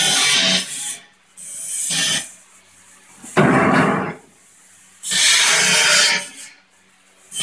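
Pneumatic spot welding machine cycling on a steel bracket: four loud, noisy bursts each lasting up to about a second, spaced roughly a second and a half apart, over a faint steady hum.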